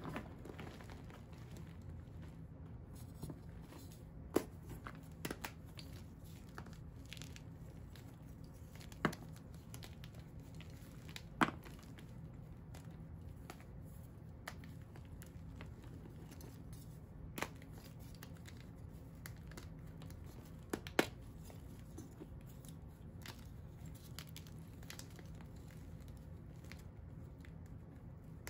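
Hands crushing and crumbling powdery dyed-and-dried blocks in a plastic tub: soft crunching and crumbling, with a handful of sharp snaps as pieces break, the loudest about 11 and 21 seconds in. A faint steady low hum runs underneath.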